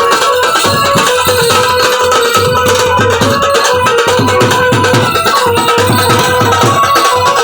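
Loud music with a fast, steady beat and held melody notes, likely the song the camel dances to.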